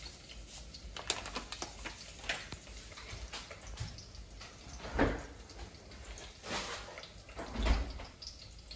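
A plastic bag crinkling with light ticks as sugar is poured from it over chicken in a pot, then three dull thumps, about five, six and a half and eight seconds in.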